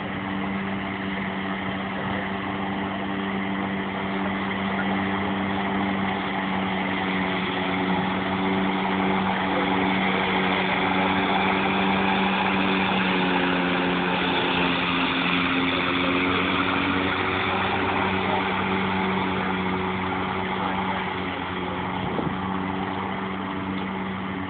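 Robotic lawnmower running with a steady hum from its mower motor and blade. It grows louder as the mower comes up close, around the middle, then fades as it moves away.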